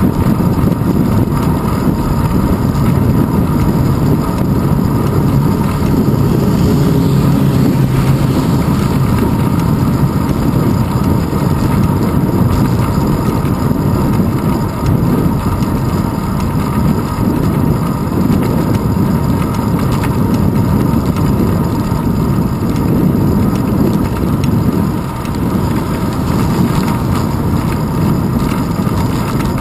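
Steady wind buffeting and road rumble from a bicycle rolling along paved road, picked up by a handlebar-mounted GoPro Hero 2.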